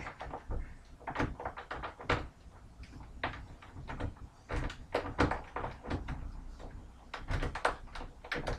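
Irregular clicks, scrapes and knocks of a tension wrench and rake worked in a house door lock, with the door hardware rattling; the lock does not open.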